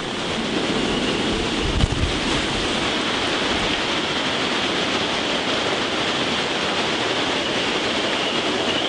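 Hurricane-force wind and heavy rain making a steady, loud rushing noise, with a brief low thump about two seconds in.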